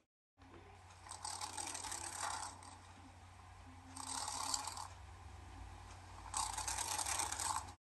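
Dragonfly wings buzzing in three bursts of dry, rapid clicking, each a second or so long, over a faint steady low hum.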